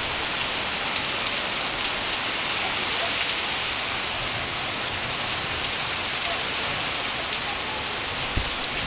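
Steady rain shower falling: a dense, even hiss that holds at one level, with a dull low thump near the end.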